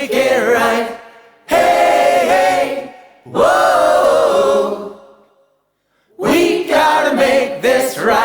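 A group of voices singing unaccompanied, in phrases of about two seconds with short breaks between them.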